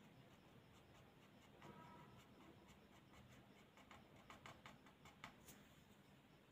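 Faint scratching and ticking of a reed pen (qalam) nib drawn across paper as a calligraphy stroke is written, the small ticks coming thickest around four to five seconds in and stopping when the pen is lifted.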